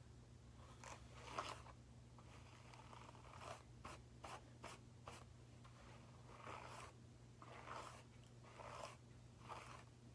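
Faint, short rustles and a few soft clicks at irregular intervals, over a low steady hum.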